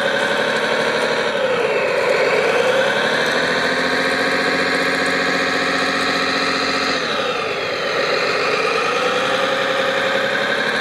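Engine sound of a radio-controlled construction machine running steadily, its pitch dropping and climbing back up twice as the revs fall and rise.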